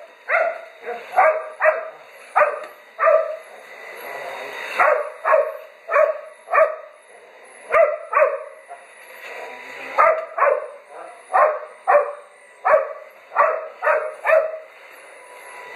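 Dog barking at a vacuum cleaner: short, sharp barks over and over, roughly one to two a second, with brief pauses between runs.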